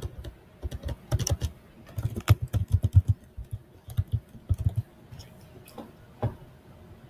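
Typing on a computer keyboard: quick runs of key clicks in several bursts, thinning to a few last keystrokes after about five seconds.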